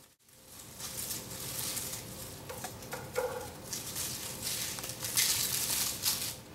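Papery garlic skins crackling and rustling as a bulb is broken apart and the cloves are peeled by hand, in uneven bursts that grow louder near the end.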